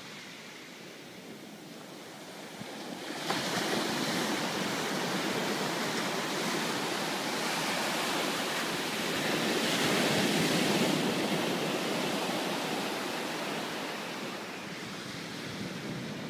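Ocean surf breaking and washing up a sandy beach: a steady rushing wash that grows suddenly louder about three seconds in, swells again around ten seconds, then eases off near the end.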